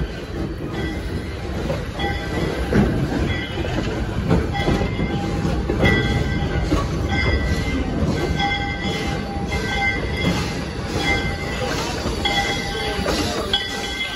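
Train of open-air excursion cars rolling slowly past on the rails with a low rumble, its wheels squealing in short high tones that recur every second or so, with light clicks over the rail joints.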